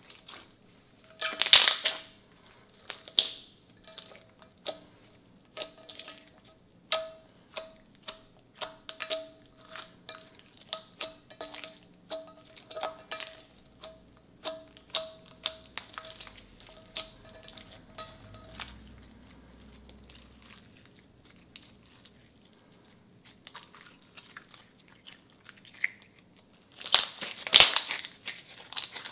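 Clear slime being pressed, folded and squeezed by hand, giving a run of sticky clicks and pops, then a quieter stretch and a loud burst of crackling near the end.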